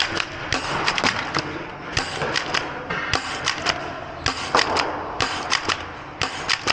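Nerf dart battle: foam-dart blasters firing and darts hitting walls and barricades, an irregular run of sharp clacks, several a second.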